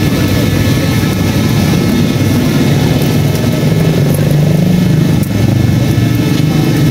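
A motor running steadily with a loud low rumble.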